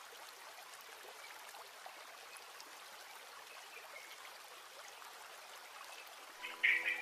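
Soft, steady hiss with faint scattered ticks in a gap in the background music. Near the end the music comes back in with a short, bright note.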